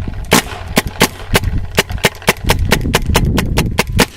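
JT paintball gun fired rapidly, a quick, slightly uneven string of sharp pops at about five shots a second.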